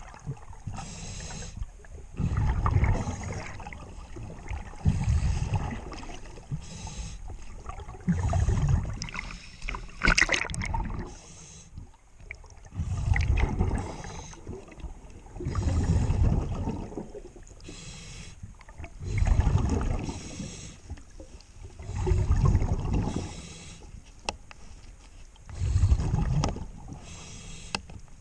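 Scuba diver's regulator breathing underwater: a low, gurgling rush of exhaled bubbles about every three seconds, with the hiss of each inhale between them.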